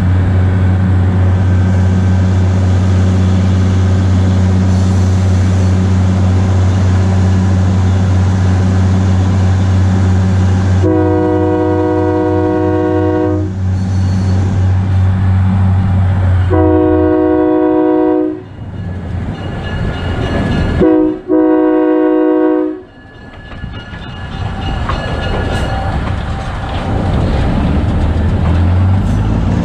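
The diesel engine of a 1943 GE 80-ton switcher locomotive drones steadily under power, with the locomotive's horn sounding four blasts, long, long, short, long: the standard grade-crossing signal. The engine drops off partway through and builds back up, its pitch rising near the end.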